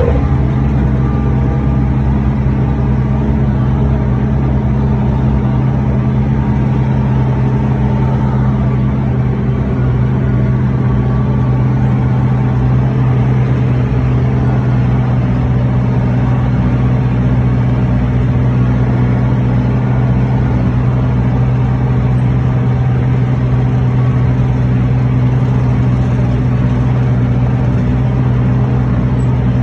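Tractor engine running steadily under way, heard from inside the cab, with an even low hum that does not change.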